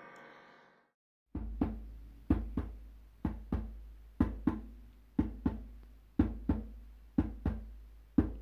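The last sustained piano chord of a hymn accompaniment dies away. After a moment of silence, a low drum starts a slow heartbeat rhythm: paired strikes, about one pair a second.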